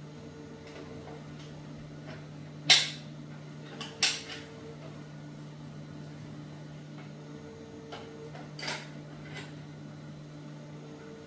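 Steady low hum with a faint short tone repeating every three to four seconds, broken by a few sharp knocks. The loudest knock comes about three seconds in, another about a second later, and a softer one near the end. No saw is running.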